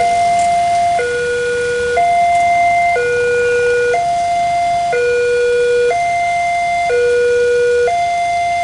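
Indonesian railway level-crossing alarm sounding from the signal post's loudspeaker: an electronic two-tone warning that switches between a higher and a lower tone about once a second. It is the warning that a train is coming and the crossing is closed.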